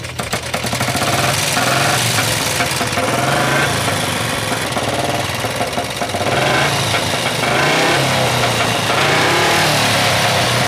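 Motorcycle engine running loud and being revved up and down several times.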